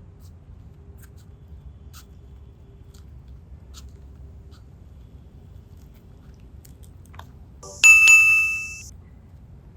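A single bright ding, like a small bell or chime, near the end, fading out over about a second. Before it there is only a faint low background with a few small clicks.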